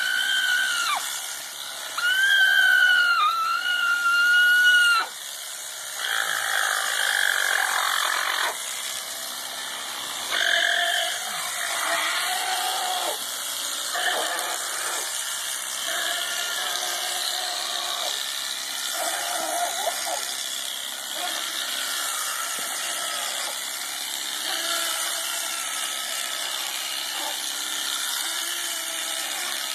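Alpaca screaming in distress at being sheared: two long, shrill, steady-pitched screams in the first five seconds, then shorter, lower cries over the steady buzz of electric shears.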